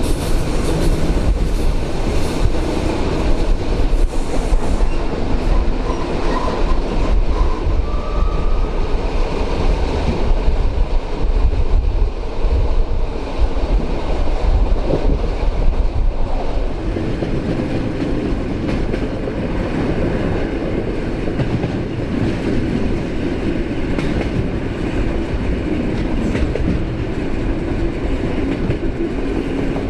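EN57 electric multiple unit running along the line, its wheels clicking over the rail joints.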